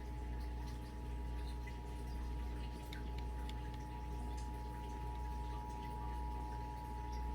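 Emergency Alert System attention signal: the two-tone alert, 853 Hz and 960 Hz sounded together, held steady over a low background hum, as broadcast for a Required Monthly Test.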